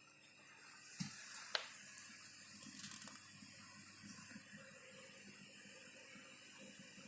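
VENO 530 CO2 laser cutter running: a steady hiss with two sharp clicks about a second in and faint ticking.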